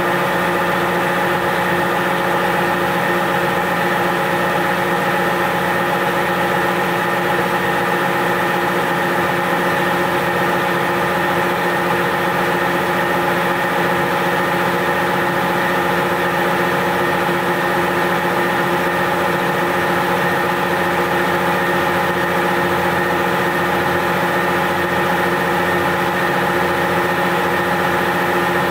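UMM-20 universal testing machine running with a steady, even hum of several fixed tones as its platens slowly compress a wooden cube across the grain.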